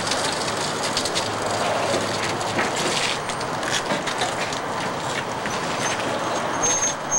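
Small caster wheels of a dolly rattling and rolling over concrete, with many light clicks and knocks over a steady hiss. A short high whistle sounds near the end.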